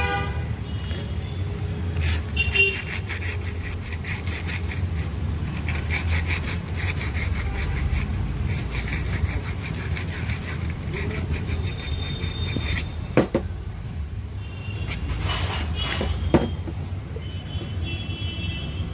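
Rapid back-and-forth scraping strokes, like sawing or filing, over a steady low rumble of traffic, with a couple of sharp knocks in the second half.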